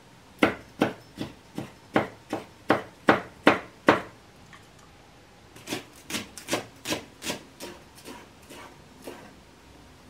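Chef's knife chopping vegetables on a wooden cutting board: a run of sharp knocks, about three a second, for the first four seconds, then after a short pause a quieter, quicker run of chops.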